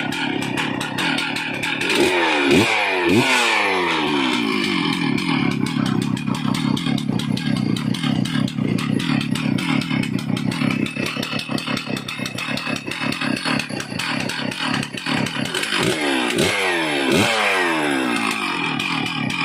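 Stihl MS 660 two-stroke chainsaw engine running, its throttle blipped a few times about two seconds in and again near the end, with steadier running between.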